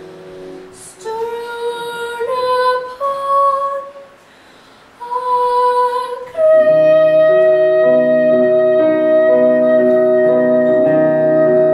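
A boy treble sings two short phrases over quiet piano accompaniment. About six seconds in, the accompaniment turns loud with sustained chords.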